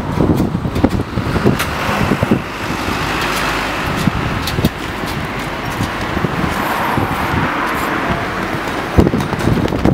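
Street traffic: passing cars, their tyre and engine noise swelling and easing, with wind buffeting the microphone in a low rumble. Short knocks from handling the camera while walking are heard now and then.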